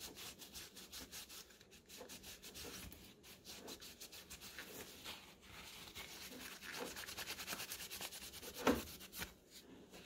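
Alcohol-soaked paper towel rubbed quickly back and forth over the copper cold plate of a CPU liquid-cooler pump block, wiping off old thermal paste: a fast run of soft rubbing strokes, several a second, with one louder stroke near the end.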